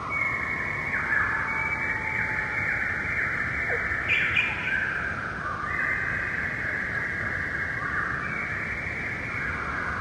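Forest ambience: a dense, continuous chorus of calling animals whose calls overlap and start and stop in staggered waves, with one brief sharper call about four seconds in.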